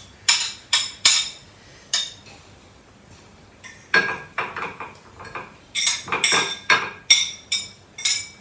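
Kitchen utensil clinking and tapping against a microwave dish as chopped onions and tomatoes are scooped into it: a few clinks, a short pause, then quick runs of clinks.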